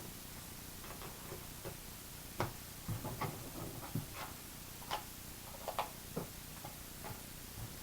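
Scattered light clicks and taps, about a dozen at irregular spacing, the loudest a sharp tick about two and a half seconds in: handling noise from hands working with cardboard and small tools.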